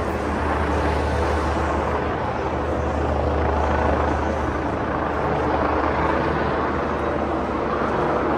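Loud, steady street noise with a low rumble underneath that weakens about five seconds in.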